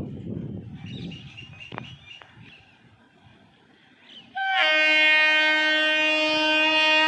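An Indian Railways electric goods locomotive sounds its horn: one long steady blast about four seconds in, opening with a brief lower note. Before it there is a low rumble and a few faint chirps, then a short lull.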